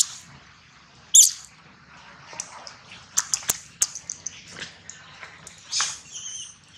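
Short, high-pitched animal squeaks and chirps: the loudest about a second in and a wavering one near the end, with a few sharp clicks in between.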